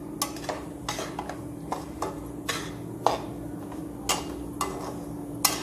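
A flat metal spatula stirring a dry, crumbly mix of grated coconut, sugar and gram flour in a heavy aluminium-alloy kadai, scraping and clinking against the pan at uneven intervals of about half a second. A steady low hum runs underneath.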